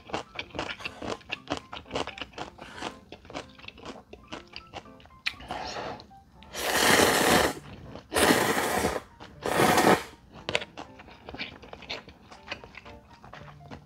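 A person chewing instant ramen noodles with quick wet mouth clicks, then three loud noodle slurps between about six and ten seconds in, followed by more chewing.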